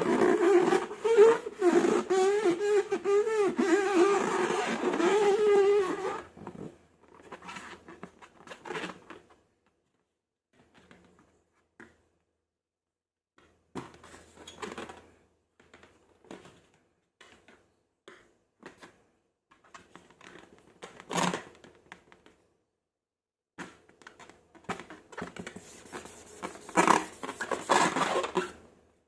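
A loud, wavering squeal for about six seconds, of the kind a stretched rubber balloon makes, then scattered soft clicks, crackles and scrapes from handling balloons and slime, with a louder cluster near the end.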